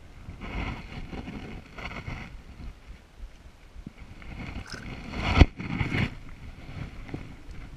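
Water splashing and handling noise as a brown trout is brought in from the net, held and released, with a sharp thump about five and a half seconds in, the loudest moment.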